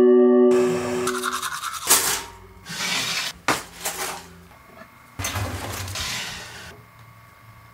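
A held musical chord stops about half a second in. A run of short household sounds follows: a couple of sharp clicks around a chrome pop-up toaster, and rasping strokes of a razor shaving stubble.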